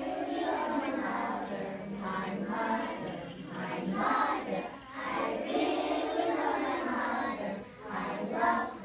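A group of small children singing a song together, in phrases with short breaks between them.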